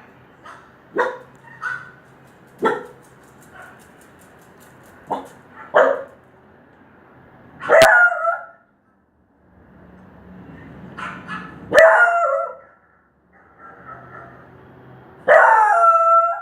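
A dog barking: a run of short yips in the first few seconds, then three louder barks, each a few seconds apart, the last one drawn out.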